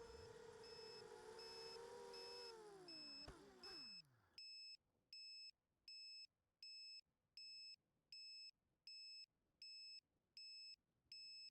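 FPV drone motors whine steadily, then wind down in pitch and stop about four seconds in, with a single knock just before. A high electronic beep repeats about once every three-quarters of a second, alone once the motors have stopped.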